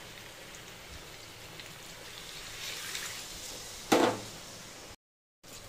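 Spiced drumstick-and-potato sabji frying with a low, steady sizzle in a hot kadhai; about four seconds in, water is poured in and hits the hot pan with a sudden loud hiss that quickly dies down.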